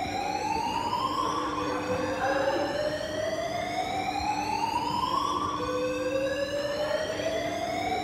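Building fire alarm sounding its evacuation signal: a slow rising whoop, each sweep climbing for about three seconds and then starting again low, over a steady low tone.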